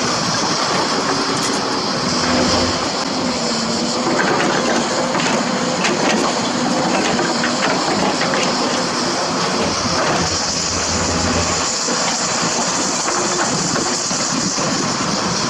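Diesel hydraulic excavator running under load, its engine pitch rising and falling, with scattered sharp knocks of the bucket against limestone rock.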